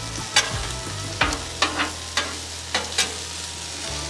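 Sweet potato slices frying on a Blackstone flat-top griddle with a steady sizzle. About seven sharp clicks of a metal utensil on the steel cooktop break in as the slices are laid down and moved.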